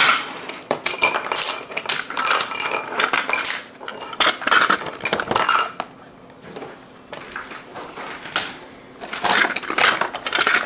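Wooden toy trains clattering and knocking together as they are rummaged through in a cardboard box, in irregular bursts of clicks that thin out for a few seconds in the middle.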